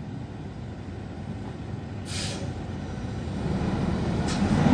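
Diesel engine of a 2014 International ProStar+ semi tractor running as it moves slowly, getting louder toward the end. A short hiss of air from the air brakes about two seconds in, and another brief one near the end.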